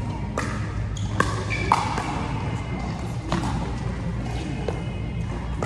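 Pickleball paddles hitting the plastic ball in a doubles rally: several sharp pops at uneven intervals, ringing in a large hall over a steady low hum.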